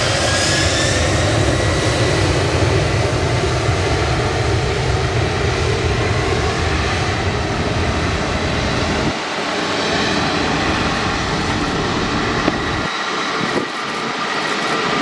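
Jet aircraft engines running loud, a dense rushing noise with a thin high whine that rises slightly near the start. The deep rumble drops away about nine seconds in and again near the end, while the whine carries on.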